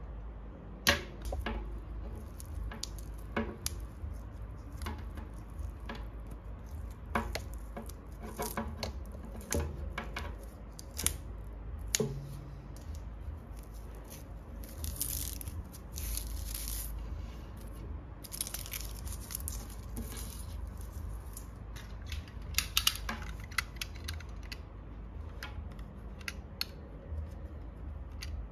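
Hands handling electrical cable and braided metal wire on a wooden tabletop: scattered taps and clicks, with two stretches of scraping and rustling about fifteen and nineteen seconds in.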